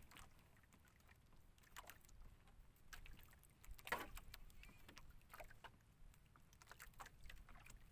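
Near silence, with a few faint clicks and knocks from fishing gear being handled in a small boat, the clearest about four seconds in.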